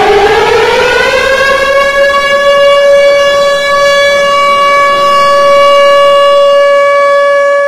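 Loud air-raid siren rising in pitch for about the first two seconds, then holding one steady tone: the alert that sends people to shelters from missile and bomb attacks.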